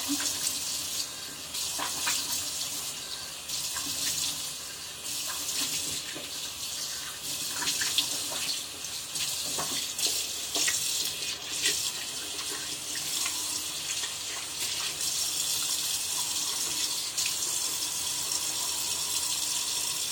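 Bathroom tap running into a sink while someone splashes water on their face to rinse off a face scrub, with small irregular splashes over the steady stream.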